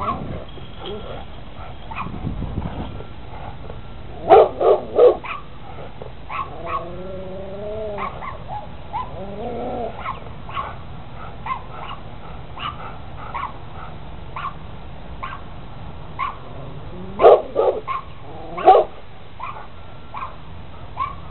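Rottweiler barking in loud bursts of a few barks, about four seconds in and again near the end, with a wavering whine between them. Short, quieter yips come about once a second throughout.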